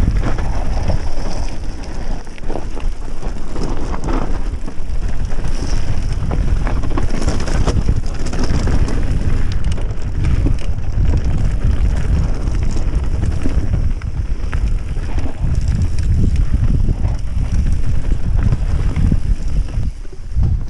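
Mountain bike riding fast down a rough dirt and gravel trail. Wind buffets the microphone, mixed with the rattle and clatter of the bike and its tyres over loose stones.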